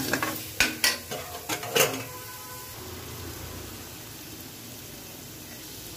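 A slotted metal spatula scraping and clacking against a metal kadai as a thick onion-tomato masala is stirred, for about two seconds; then the strokes stop and a steady, quieter sizzle of the masala frying in oil is left.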